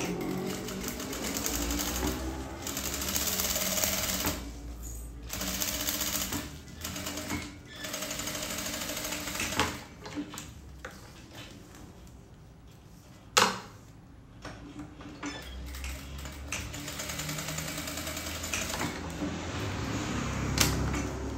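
Jack industrial straight-stitch sewing machine stitching through layers of fabric in several runs, starting and stopping as the seam is guided. A quieter stretch in the middle holds one sharp click, and then the machine runs again.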